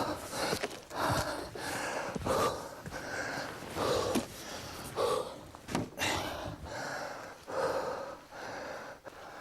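Large axe chopping into a tree trunk, blows landing roughly once a second, each followed by a forceful breathy exhalation or grunt from the man swinging.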